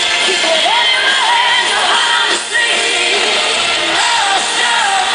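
Live pop-rock band playing loudly while a woman sings the lead melody into a handheld microphone.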